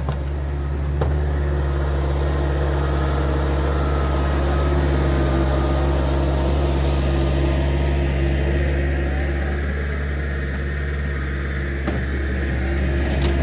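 Gehl skid steer's engine running steadily, with two brief knocks, about a second in and near the end.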